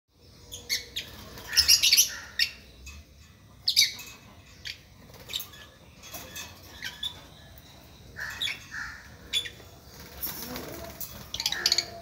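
Several lovebirds chirping: short, shrill, high-pitched calls in irregular bursts, with the loudest flurries of chatter about two seconds in and again near the end.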